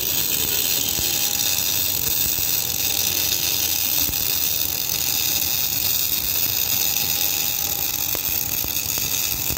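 MIG welding arc from a Hồng Ký MIG 350 Pro inverter welder with a separate wire feeder, running bare solid wire under shielding gas: a steady crackling sizzle that goes on unbroken.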